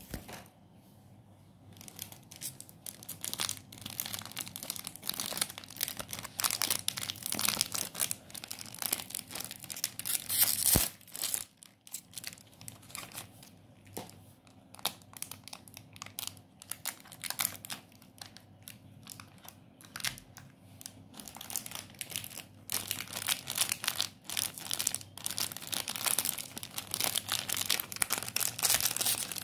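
Plastic wrappers of Britannia Cake Gobbles snack cakes crinkling and tearing as they are opened and pulled off by hand, in dense irregular crackles. There is a louder burst about ten seconds in and a short lull just after it.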